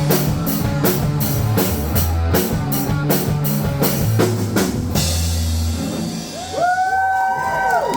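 Live rock band, with drum kit, bass and guitar, playing the instrumental ending of a song, the drums hitting steadily until about five seconds in. Near the end, a few long tones glide up, hold and fall as the song closes.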